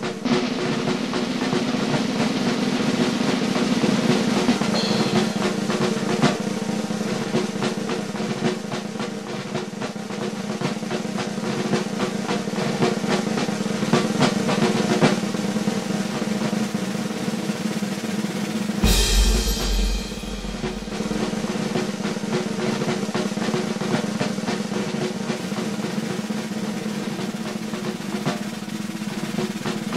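Music made of fast, continuous snare drum rolls over a steady low tone, with a brief heavier passage about two-thirds of the way through that adds deep bass.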